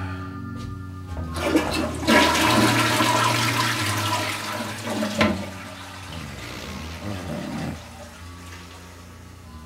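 Toilet flushing: a loud rush of water starts about two seconds in and drains away over the next few seconds.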